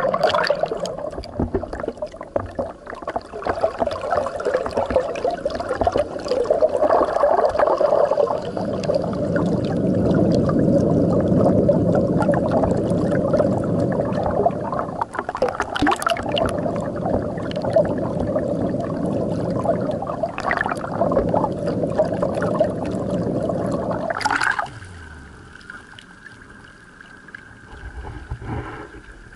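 Water rushing and gurgling past a submerged camera beside a pedal boat's hull, heard muffled and dense as underwater. About 24 seconds in it cuts off sharply to a much quieter sound with a faint steady thin whine.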